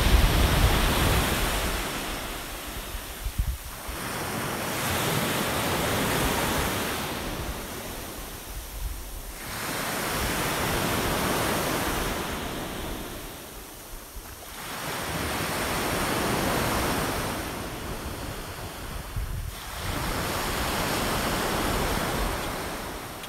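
Small waves breaking and washing up a pebble beach, surging and falling back about every five seconds, with wind buffeting the microphone.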